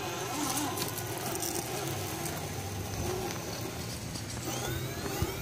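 RC rock crawler's TenShock 906 1750kv six-pole unsensored brushless motor and gear drivetrain whining faintly under low-speed throttle as the truck crawls over rocks, the whine rising in pitch near the end as the throttle comes up. Tyres click and scrape on the rock.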